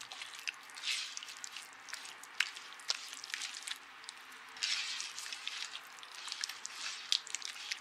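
A hand squishing and kneading soft butter, sugar and oil together in a wooden bowl: wet, squelching smears in irregular bursts, with a few sharp clicks.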